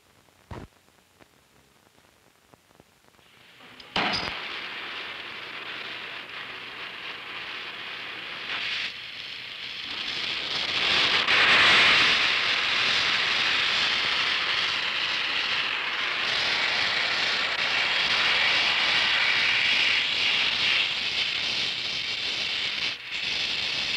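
A single short click, then about four seconds in the hiss of an oxyacetylene welding torch flame starts abruptly and runs steadily, loudest a little before the middle.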